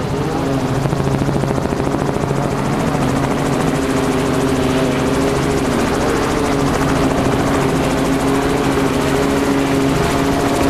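Helicopter heard from on board, running steadily: a constant engine and gearbox drone with a fast, even beat from the rotor blades.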